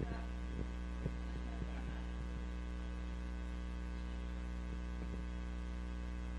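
Steady electrical mains hum in the church's microphone and sound system, with a few faint short knocks in the first two seconds.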